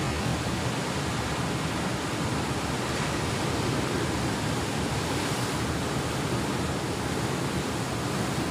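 Sea surf breaking and washing against a rocky shore: a steady, unbroken rush of waves.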